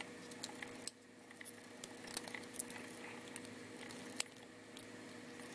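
Light, scattered clicks and taps of small plastic camera parts being handled as the action camera's circuit board is worked out of its plastic inner case, the sharpest about a second in and about four seconds in, over a faint steady hum.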